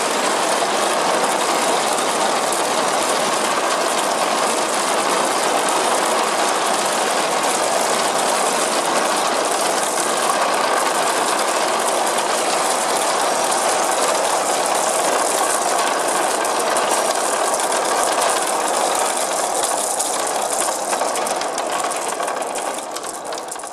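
Thousands of small glass marbles rolling down a wide wooden marble run and knocking against each other, a dense, steady clatter that fades out near the end.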